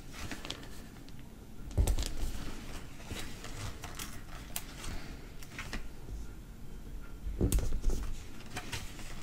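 Hands handling sticker sheets and pressing stickers onto a paper planner page: scattered small clicks, taps and rustles, with two dull thumps, one about two seconds in and one near the end.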